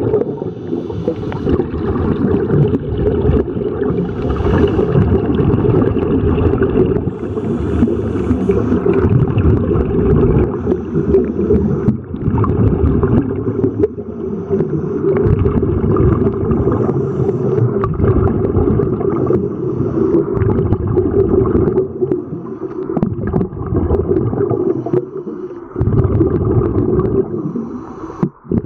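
Underwater sound picked up by a camera submerged in a freshwater spring: a steady, muffled low rumble and gurgle of moving water.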